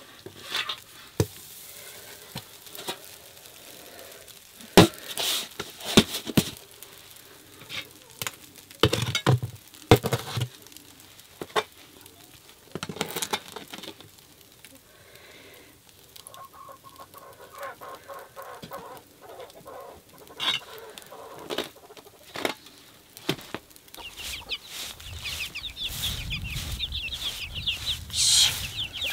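Scattered knocks and clatters as flatbread is handled and baked in a clay pit oven. Then, in the last few seconds, a flock of hens and chicks clucking and cheeping busily over a low rumble.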